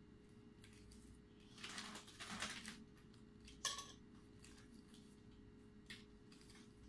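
Quiet handling of strings of LED modules and their wires on a workbench: a rustle about two seconds in, a sharp click a little past halfway, and a fainter tick near the end, over a steady faint hum.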